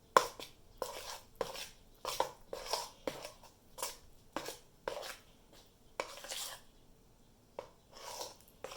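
Pancake batter being stirred by hand in a bowl: a utensil knocks and scrapes against the bowl in uneven strokes about twice a second, pausing briefly once.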